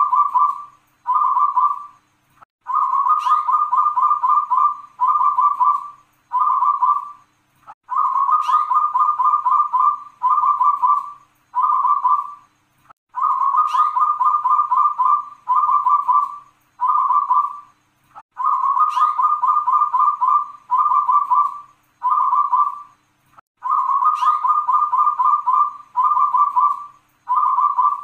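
A caged local Indonesian zebra dove (perkutut) singing its cooing song, the 'klauw ke-tek kung kung kung' pattern. Each phrase is a long run of rapid stuttering coos followed by two or three shorter groups, and the phrase repeats about every five seconds, five times over.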